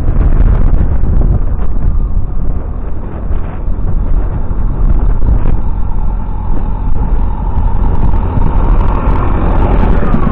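Diesel engine of a JCB backhoe loader approaching, its steady tone growing louder in the second half, over heavy wind rumble on the microphone.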